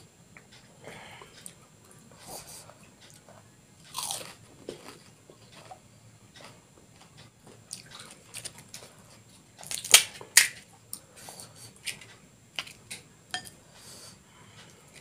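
Close-miked crunching and chewing of crisp fried panipuri shells, in irregular crunches with the loudest ones about ten seconds in.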